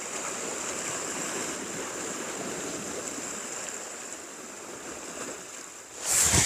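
Sea water washing against shore rocks, a steady rush of surf. A louder burst of noise comes in near the end.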